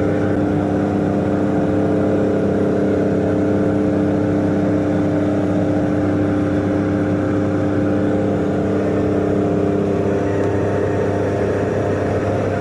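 A light aircraft's propeller engine droning steadily, heard inside the cabin of the jump plane during the climb.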